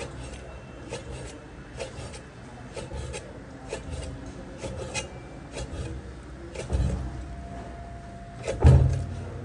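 A Chinese cleaver slicing pork stomach into strips on a thick plastic cutting board. Each cut ends in a short tap of the blade on the board, about two a second, and a heavier thump comes near the end.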